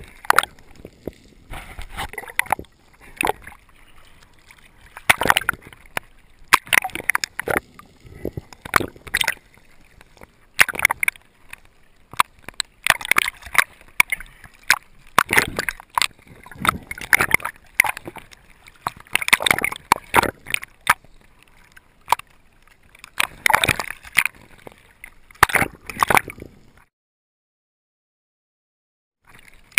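Water sloshing and gurgling around a spearfisher's action camera as it moves underwater and breaks the surface, in irregular surges about a second apart. It cuts off to silence near the end.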